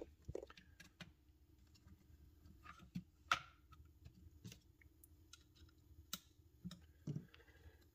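Scattered clicks and knocks of a semi-automatic rifle being handled on a rubber bench mat, its upper receiver lifted off the lower receiver and fitted back. About three seconds in comes a sharper metallic clink that rings briefly.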